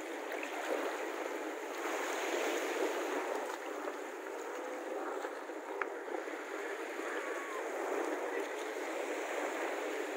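Steady wash of small sea waves lapping in the shallows.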